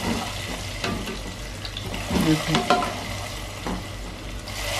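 A tadka of onions and garlic fried in hot oil sizzling steadily after being poured onto cooked lentil daal, with several light clinks of a metal ladle against the steel pans.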